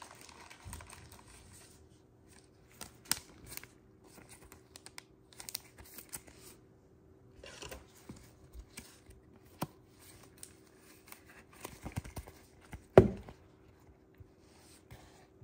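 Gloved hands sleeving a trading card: the card slides into a plastic sleeve and rigid top loader with soft plastic rustling and scraping, scattered light clicks, and one sharper click near the end.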